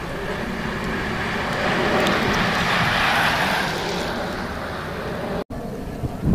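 Racing bicycles and a following car passing close on asphalt: a hiss of tyres that swells and fades, peaking about three seconds in, over wind rumbling on the microphone. The sound drops out for an instant about five seconds in.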